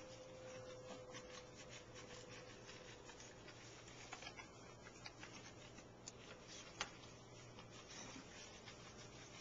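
Near silence: faint rubbing and handling noise over a low steady hum, with a few light clicks in the second half.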